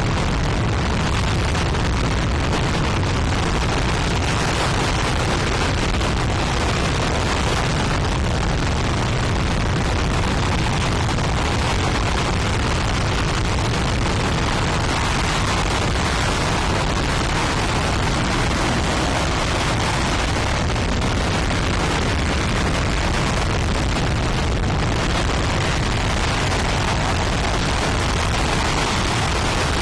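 RS-25 liquid-hydrogen/liquid-oxygen rocket engine firing steadily on a test stand: a loud, continuous rushing noise with a deep rumble underneath.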